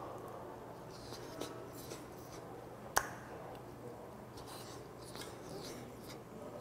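Close-up chewing and mouth sounds of a man eating boiled pufferfish meat, with a single sharp click about three seconds in.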